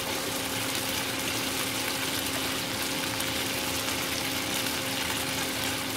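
Chicken pieces sizzling in oil in a nonstick frying pan, a steady hiss, with a faint steady hum underneath.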